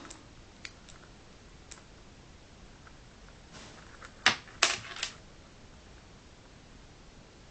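Handling noise from a small camera pouch and its metal carabiner clip: a few light clicks, then a quick run of three or four sharper clicks and knocks about four to five seconds in.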